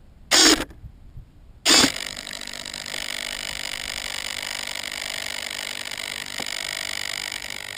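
Model airplane's motor and propeller: two short, loud bursts, then running steadily from about two seconds in with a constant high whine.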